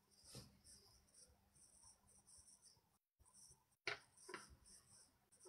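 Near silence: room tone with a few faint short clicks, two of them close together about four seconds in.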